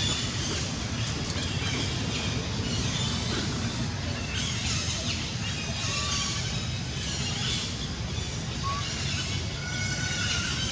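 Outdoor ambience: a steady low rumble with scattered high chirps and a few short whistles.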